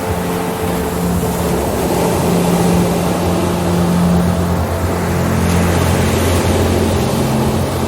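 Ambient sleep music: held low synth tones that shift every few seconds over a steady wash of noise like surf.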